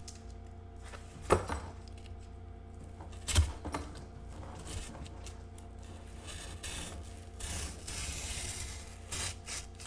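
Cardboard shipping box being handled and worked open by hand: two sharp knocks about a second and three seconds in, then rustling and scraping of the cardboard and packaging.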